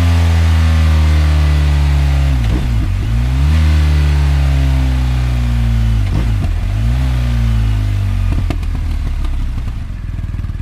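BMW R 1250 GS motorcycle's boxer-twin engine running through its exhaust. The note slowly falls in pitch, broken every three to four seconds by a brief dip and quick recovery, with a few sharp pops near the end.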